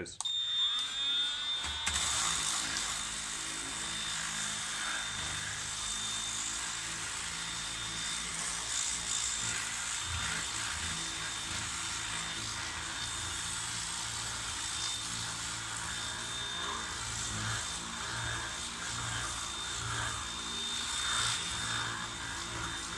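Ozito 18V cordless random orbital sander switched on at speed 1, its whine rising as it spins up over the first couple of seconds, then running steadily with a high whine as it sands wood with 80-grit paper.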